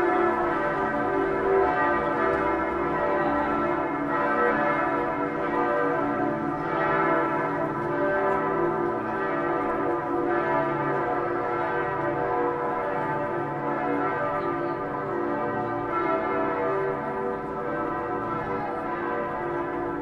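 Several church bells ringing together in a continuous peal, their tones overlapping without a break.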